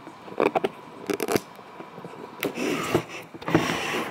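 Clicks and knocks of handling, then clear plastic wrapping crinkling and rustling about two and a half seconds in.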